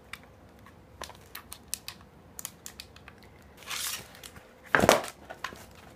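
A sheet of skateboard grip tape being handled and pressed flat: scattered crinkles and clicks, a scratchy rustle a little before four seconds in, and a louder scrape about five seconds in.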